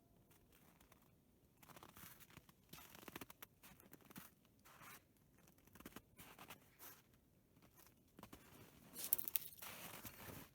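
Faint, irregular rustling and scraping from materials being handled, in short bursts, with the loudest stretch about nine seconds in.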